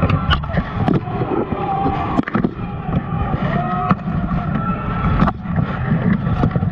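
Plate armour clanking and scraping in close-quarters armoured combat, heard through a camera worn on the fighter's armour: a heavy, muffled rumble of body movement against the mount, broken by several sharp metallic knocks.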